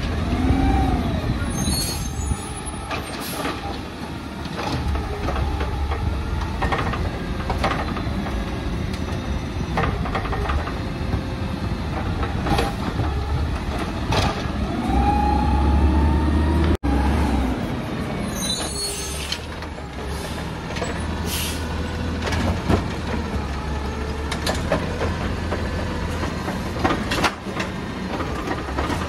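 Scorpion automated side-loader garbage truck running, its diesel engine revving up and down as the hydraulic arm works. Short air-brake hisses come about 2 and 19 seconds in, with scattered metallic knocks and clanks from the arm and the cart.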